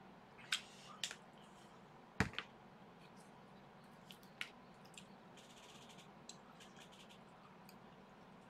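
Quiet handling at a meal: a few sharp clicks and light taps, the loudest about two seconds in, as a squeeze bottle of mayonnaise is used over fried kakiage and chopsticks are handled on the plate.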